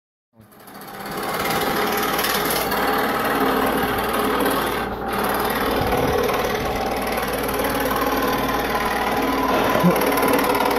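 Scroll saw running, its reciprocating blade cutting through a thin wooden board with a steady buzzing rasp. It comes in about a third of a second in and builds to full level over the next second.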